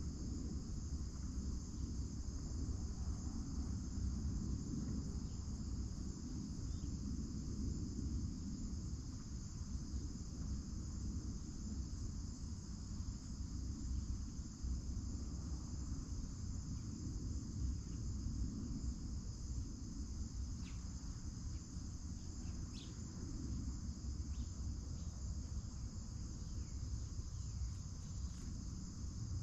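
Steady chorus of crickets and other insects, a continuous high-pitched drone, over a low rumble. A few faint short chirps come about two-thirds of the way in.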